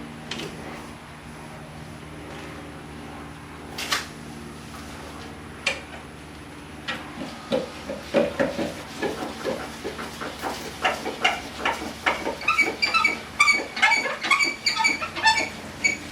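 Car jack being worked to lift the car: a few separate knocks at first, then from about seven seconds in a fast, uneven run of metallic clicks and clinks that grows louder.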